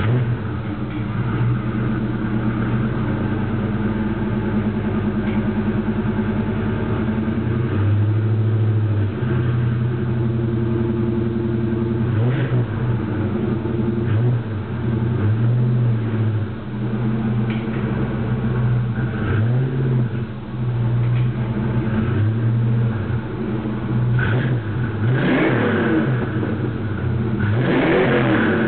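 A 1988 Ford Mustang LX engine running just after starting, heard at the exhaust. It idles steadily, with a short dip in speed about eight seconds in, then a series of brief revs, more frequent toward the end.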